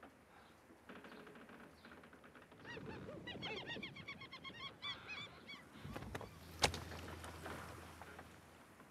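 A flock of birds calling over one another: many short, quick calls for about three seconds. A single sharp click follows about a second later.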